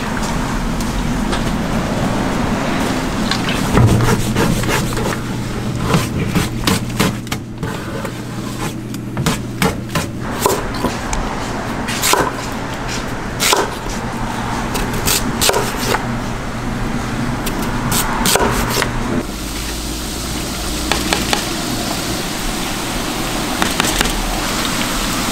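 Irregular knocks of food preparation, a knife striking a wooden cutting board, over a steady low hum; the hum stops about three-quarters of the way through and the background noise changes.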